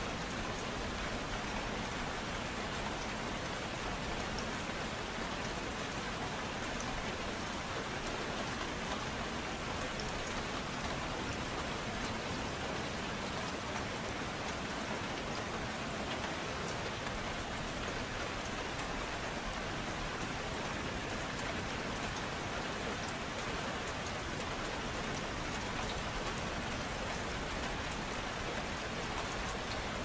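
Gentle rain falling steadily, an even hiss of drops.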